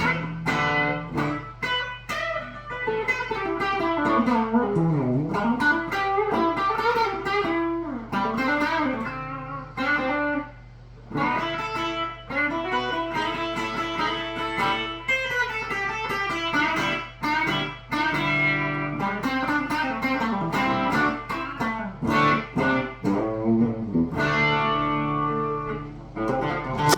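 Electric guitar played straight into a Marshall Origin 20C valve combo with its gain knob pulled for boost, no pedals in the chain: overdriven riffs, chords and single-note lines with slides and bends. A steady low hum sits underneath.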